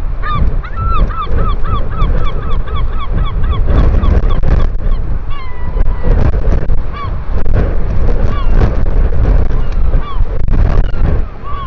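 Wind buffeting the microphone, with a bird giving a rapid run of short rising-and-falling calls, about three or four a second, in the first few seconds, then scattered single calls.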